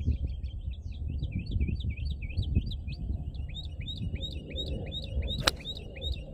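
A golf iron strikes the ball and turf once about five and a half seconds in, a single sharp click, on a shot the golfer got under. Birds chirp rapidly and steadily throughout, over a low rumble.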